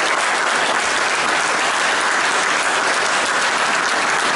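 Audience applauding steadily, a dense, even clapping that does not let up.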